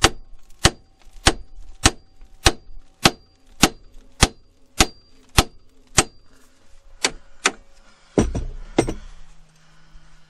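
Ball-peen hammer striking the steel steering knuckle beside the outer tie rod end, a steady run of sharp metallic blows a little under two a second with a faint ring between them, to shock the tie rod end's tapered stud loose. The rhythm breaks after about six seconds, two more blows follow, and near the end come two heavier, duller knocks.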